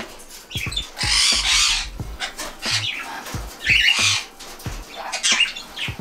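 Caged pet parrots squawking: three or four harsh screeches, the longest about a second in, the others near the middle and toward the end.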